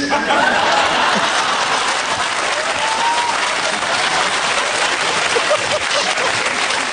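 Studio audience applauding steadily, with a few voices faintly heard over the clapping.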